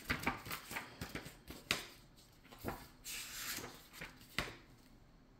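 Stockman pocketknife handled in the hands: a few scattered sharp clicks and a brief rubbing sound just past the middle.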